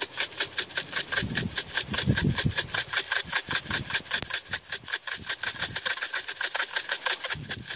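Dried onion flakes being shaken from a plastic spice shaker bottle over a bowl: a quick, steady rattle-scrape, several shakes a second.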